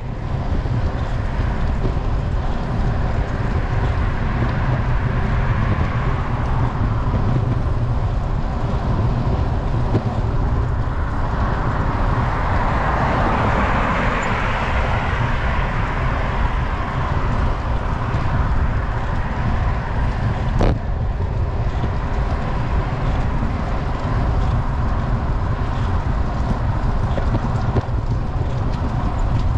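Wind buffeting a GoPro's microphone while road cycling, a steady low rumble. A car passes about halfway through: its tyre noise swells and fades. There is one sharp tick about two-thirds of the way in.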